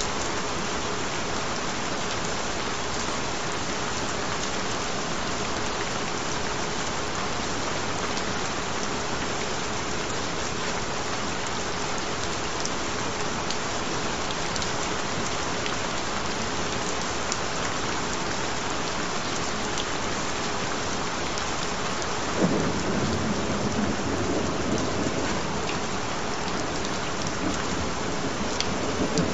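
Steady rain, with a gentle roll of thunder rumbling in low about three-quarters of the way through and fading over several seconds.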